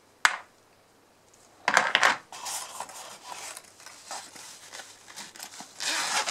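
Test probes and their leads clatter as they are set down in a cardboard box: a sharp click, then a couple of louder clacks about two seconds in. A padded fabric carrying case is then picked up and handled, rustling and scraping, loudest near the end.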